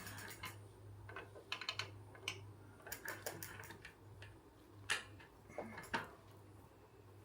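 Irregular small metallic clicks and taps as a bicycle pedal's left-hand thread is screwed into the crank arm and tightened.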